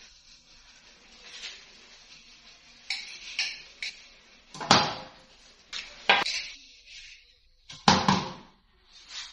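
Metal pots and utensils clattering and clanking in a kitchen: a string of irregular sharp knocks, the loudest about halfway through and again near the end.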